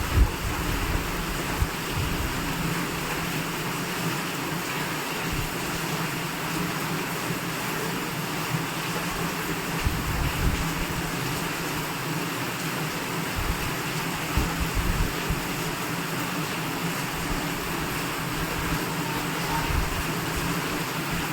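Steady rushing noise, like a fan or blower running, with a few faint low knocks.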